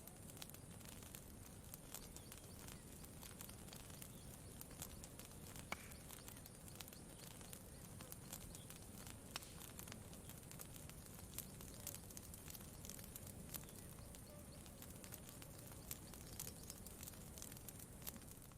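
Campfire crackling faintly: scattered sharp pops and ticks over a low steady rush.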